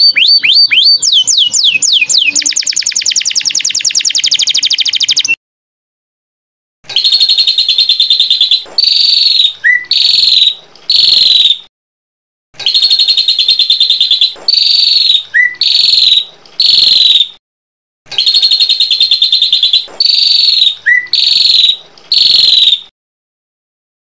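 Small songbirds singing loudly: first a dense, fast trill of quick downward-sweeping notes lasting about five seconds, then after a short pause a buzzy rapid trill ending in a few sharp chirps, the same phrase repeated three times with brief gaps between.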